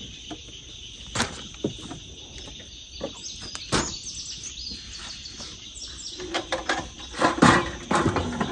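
Coleman two-burner camp stove being closed and handled on a tailgate: sharp knocks about a second in and near four seconds, then a run of clattering in the last couple of seconds as it is lifted away. A steady insect drone runs underneath, and a bird calls with a quick series of short falling notes around three to four seconds in.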